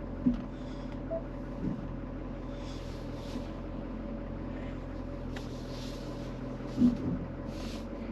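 Vehicle engine idling with a steady low hum, with a few short knocks and brief soft hisses over it.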